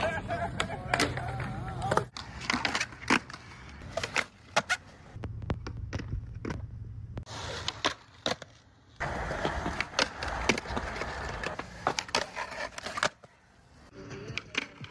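Skateboard wheels rolling on smooth concrete, with many sharp clacks of the board popping and landing and a grind scraping along a ledge. The sound changes abruptly a few times.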